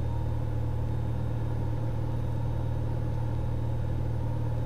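Single-engine Cessna 182 (King Katmai conversion) engine and propeller droning steadily, heard inside the cabin in flight. It is a constant low hum with a few steady tones above it, at reduced power on a descending instrument approach.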